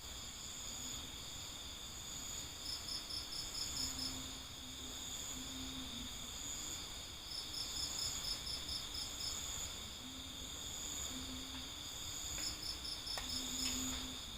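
Crickets chirping at night: a continuous high-pitched trill, with three bursts of louder, evenly spaced chirps, about six a second for a second or so each, near the start, in the middle and near the end.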